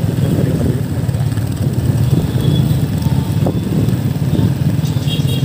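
Motorcycles riding along a street: steady engine and road noise.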